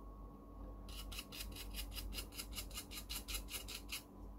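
Quick back-and-forth scrubbing of a phone's circuit board, wiping the pads clean after excess solder has been removed. About six or seven scratchy strokes a second, starting about a second in and stopping near the end.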